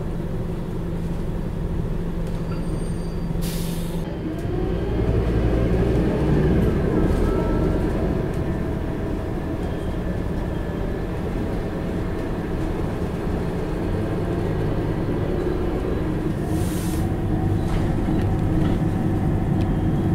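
Scania K94IB coach heard from inside the cabin: the engine runs steadily, then from about four seconds in rises in pitch and level as the coach pulls away, with a rising ZF automatic gearbox whine. A short burst of air hiss comes just before it moves off, and another near the end.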